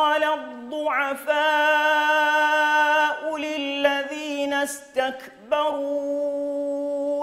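A man's solo voice chanting the Qur'an in melodic tajwid recitation, holding long sustained notes with ornamented turns between them. There is a brief break for breath about five seconds in.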